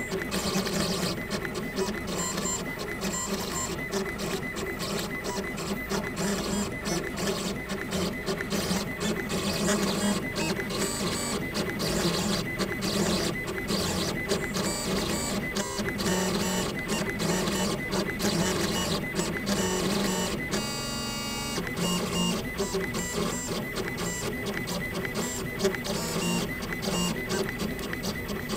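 Gravograph M20 three-axis engraving machine running a diamond drag engraving job on an anodized aluminium plate: its motors whir and stutter through short, changing moves as the stylus traces letters. About 21 seconds in there is a brief, different steady tone before the stop-start pattern resumes.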